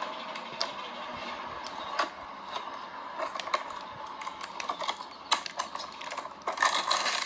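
A cardboard box and its packaging being opened and handled by hand: scattered clicks and taps with rustling, which gets louder near the end.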